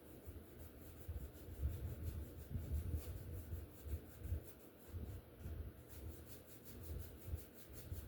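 A one-inch brush scrubbing and dabbing oil paint onto a painted steel sawblade, with soft, irregular low thumps from the strokes.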